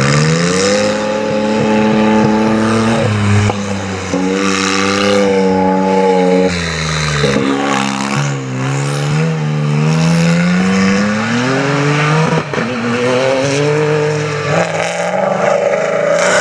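Off-road 4x4 rally cars driven hard on a dirt track. The engines rev up loudly and repeatedly: the pitch climbs, then drops back several times as the cars shift and lift off passing close by.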